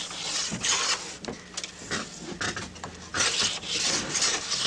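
Small hand plane shaving a split-cane (bamboo) rod strip in a planing block: several short scraping strokes, with a lull in the middle.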